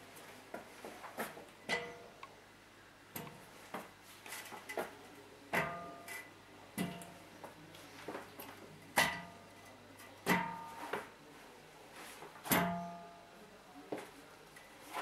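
Steel stair-climbing hand truck being hauled up tiled steps. Its three-wheel star clusters tip over and drop onto each step, giving a series of irregular knocks and clanks that ring briefly in the metal frame. The loudest knocks fall in the second half.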